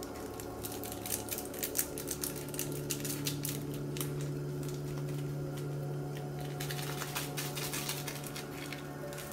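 Water heating in a stainless steel saucepan on a gas hob, ticking and crackling with irregular rapid clicks as bubbles form and collapse just before the boil. A steady low hum comes in about two seconds in.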